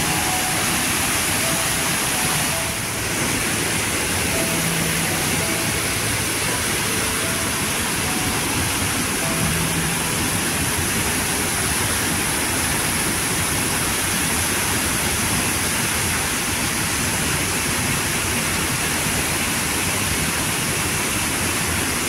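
Waterfall: a steady, unbroken rush of falling water, with a strong hiss.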